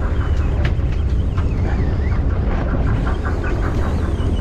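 Steady low rumble of wind and boat, with a quick run of clicks from a conventional fishing reel being cranked in the second half. A hooked yellowfin tuna is splashing the water at the surface.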